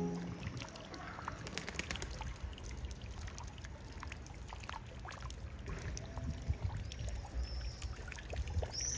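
Water trickling and dripping from the moss-covered stone of a medieval fountain into its basin, a steady splashing with many small drips.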